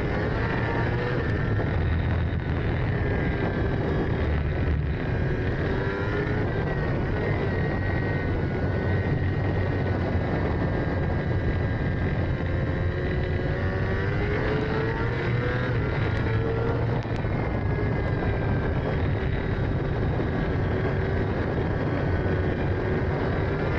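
Racing sidecar engine running hard at speed, its pitch climbing and dropping with the throttle several times, over a steady rush of wind and road noise.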